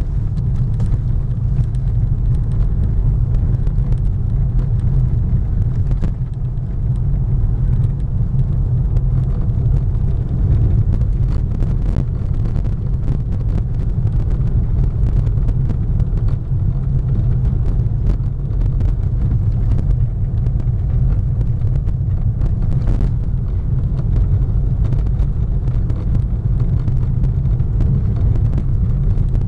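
Volkswagen Golf car running with a steady low rumble, holding an even level with no rise or fall in pitch, and a few faint ticks scattered through it.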